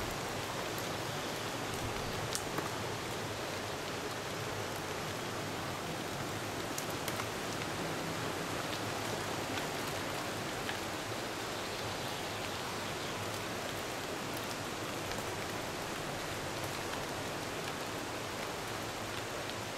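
Steady even hiss of a pack of mountain-bike tyres rolling on a paved road, with a few faint clicks.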